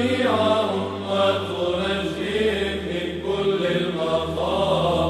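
Byzantine chant sung in Arabic, an Aposticha hymn in Tone 4: a melodic vocal line moving over a steady low held drone (the ison).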